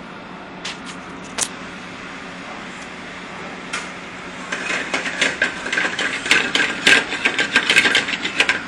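Steady hum of a commercial kitchen's ventilation. Near the start there are two single clicks, and from about halfway a dense run of clicks and light metal clatter at the stove.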